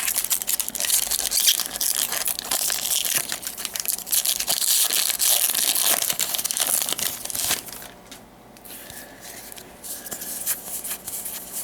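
Foil trading-card booster pack wrapper crinkling and tearing as it is ripped open, a dense crackle that stops about seven and a half seconds in, leaving only faint rustles.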